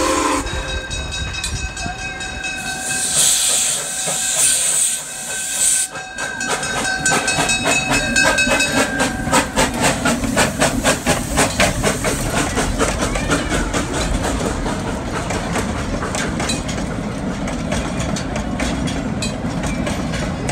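Small steam locomotive No. 119 passing close by. A burst of steam hiss comes about three seconds in, followed by a run of regular exhaust chuffs and clicks. Then its open passenger cars roll past with a steady rumble and wheel clicking.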